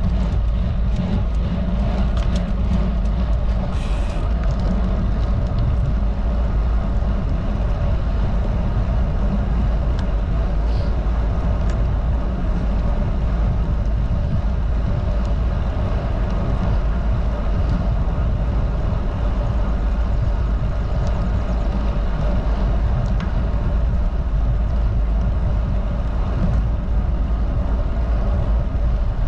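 Steady wind rush over the camera microphone of a road bike moving at about 18 mph, mixed with tyre noise on the asphalt.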